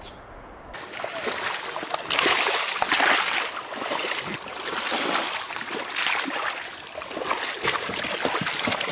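Muddy shallow pond water splashing and sloshing as a person wades and gropes by hand for fish, with irregular splashes. It is quiet for about the first second, then the splashing starts and goes on unevenly.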